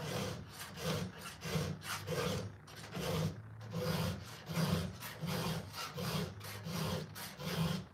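Hand file scraping across the cutting teeth of a Stihl chainsaw chain in even, repeated strokes, about two a second, sharpening the cutters.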